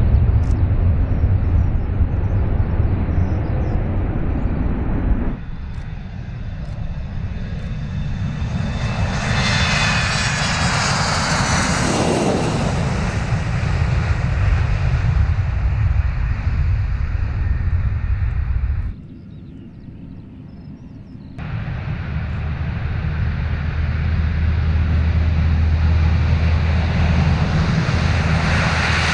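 Military aircraft engines in three cuts: a Boeing E-3 Sentry's four turbofans at takeoff power as it climbs away; then an Embraer ERJ-145 AEW&C jet taking off, with a whine that falls in pitch as it passes; then, after a brief quieter stretch, a Lockheed CP-140 Aurora's four turboprops running with a steady low propeller drone.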